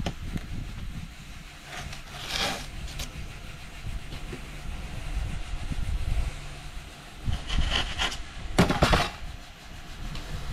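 EPS guillotine blade cutting through expanded polystyrene insulation board: short scraping swishes about two seconds in and twice near the end, the last one the loudest, over a steady low rumble.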